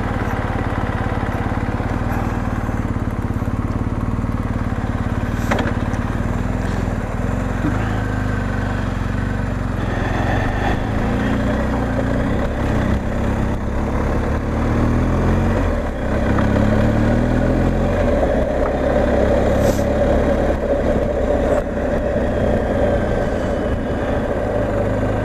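BMW R 1250 GS Adventure's boxer-twin engine running as the bike is ridden slowly, its note rising and falling with the throttle, most clearly partway through.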